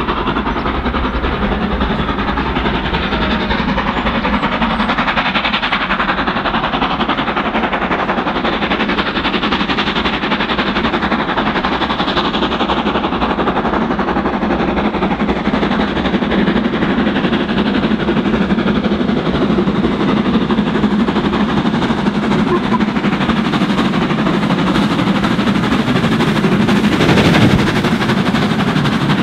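Three-cylinder LMS Jubilee 4-6-0 steam locomotive working hard as it pulls away with its train, its exhaust beats mixed with the running noise of the train, getting a little louder as it comes closer, with a brief louder surge near the end.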